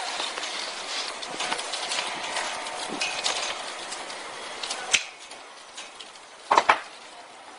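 Yellow polyester farm wire scraping and rustling as it is pulled and knotted around a metal pole, with many small clicks. A sharp click comes about five seconds in, and a short cluster of loud knocks follows a little later.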